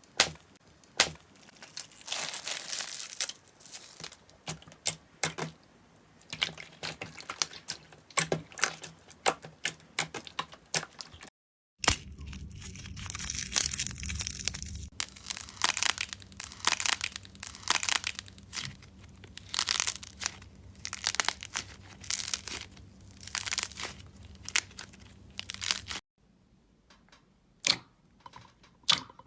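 Slime being squished and stretched in the hands: dense, irregular crackling and clicking as air pockets pop. Two brief drop-outs break it where one clip cuts to the next.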